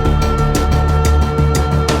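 Loud, driving background music with a strong bass and a steady drum beat, about two to three strokes a second.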